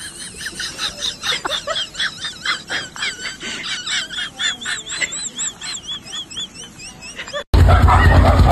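A cat lapping water, a quick regular run of soft clicks about three or four a second, with a repeated high chirping over the second half. Near the end it cuts abruptly to a much louder low rumble.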